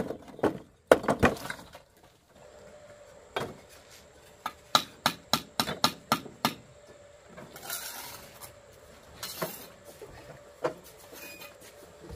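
Sharp knocks of hard objects struck together, a few scattered at first, then a quick run of about four a second for two seconds, with two short scraping sounds after it.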